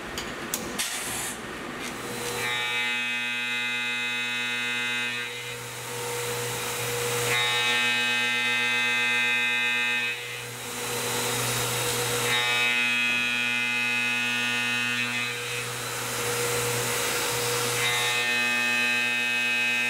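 CNC milling machine spindle running with an end mill cutting an aluminum block: a steady hum, with a ringing, pitched cutting tone that comes in four times for about two and a half seconds each as the cutter makes repeated passes. A few clicks sound at the start.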